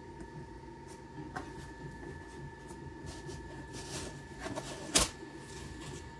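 Foam packing insert being rubbed and pulled out of a laser engraver's enclosure, with a single sharp knock about five seconds in. A faint steady hum runs underneath.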